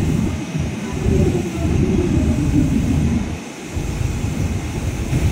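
Wind buffeting the microphone: a loud, uneven low rumble that drops out briefly about three and a half seconds in, over trains moving slowly through a station's tracks.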